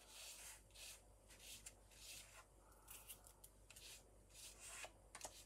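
Distress ink pad rubbed in short strokes over brick-embossed cardstock: a faint, dry, scratchy swish repeating about every half second.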